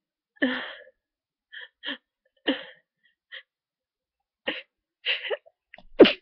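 A person with a stuffy head cold sneezing. Short catching breaths, several with a falling voice, come at uneven gaps as the sneeze builds, and the loud sneeze bursts out right at the end.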